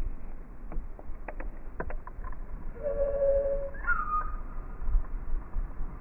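Loggerhead shrike calling, slowed down so it sounds low and deep: a few short clicks, then a held low note about three seconds in and a brief higher, sliding note just after. A steady low rumble runs underneath.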